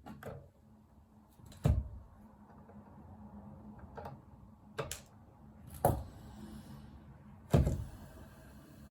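About six sharp knocks and clunks at uneven intervals, three of them much louder than the rest, from tools and parts being handled and set down on a workbench during soldering work.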